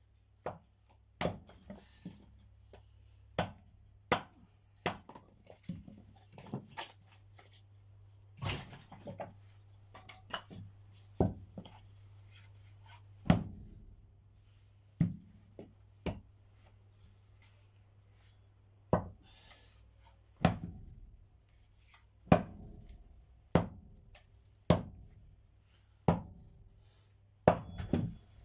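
Firewood being chopped: a series of sharp knocks of a blade striking wood, about one every second or two, some much louder than others.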